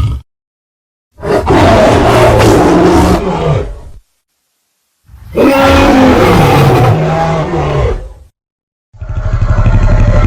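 Reconstructed roar of an Albertosaurus, a tyrannosaurid dinosaur. There are three long, deep roars, each about three seconds, separated by about a second of silence. The pitch slides within the roars, and the last one pulses rapidly.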